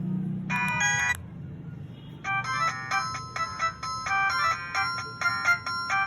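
Dizo Star 400 feature phone playing its built-in ringtones through its small loudspeaker. A brief electronic tone sounds about half a second in, then a new ringtone starts about two seconds in: a quick, rhythmic melody of bright, bell-like notes.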